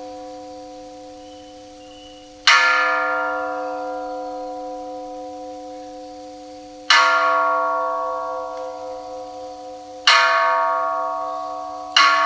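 A bronze Buddhist temple bell is struck four times, and the strikes come closer together toward the end. Each strike rings on with a steady hum and fades slowly, and the last ring is still dying away as the clip begins.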